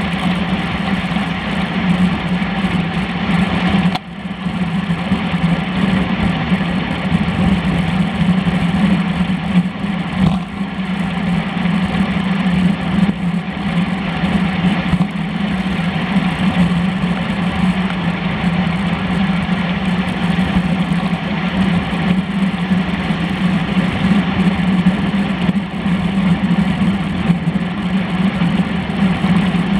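Wind and road noise picked up by a camera mounted on a road bike's handlebars while it rides at racing speed: a loud, steady rushing with a constant low hum under it, dipping briefly about four seconds in.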